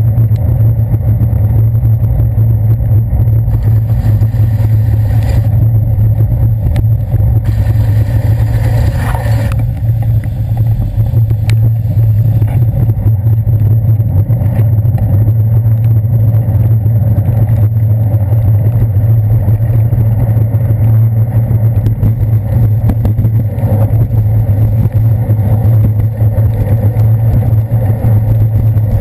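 City traffic on a wet street, heard from a bicycle's handlebar camera: a loud, steady low rumble of buses and taxis, with a brief hiss about eight seconds in.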